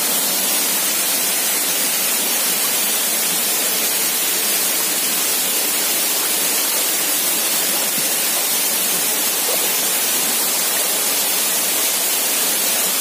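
Waterfall rushing steadily, an even unbroken noise of falling water.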